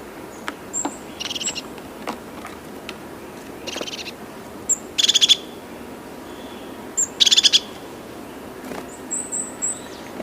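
A bird calling: four short, rapid rattling trills a second or two apart, with thin high chips in between.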